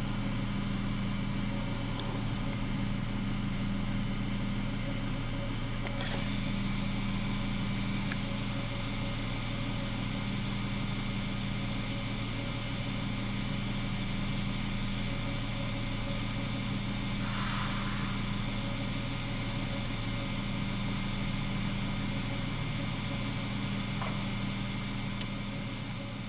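Steady low mechanical hum with a faint high whine, fading slightly near the end.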